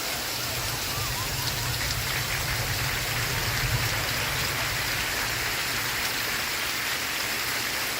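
Steady rain falling on a surface, an even hiss of drops. A low rumble sits under it for the first few seconds, then fades.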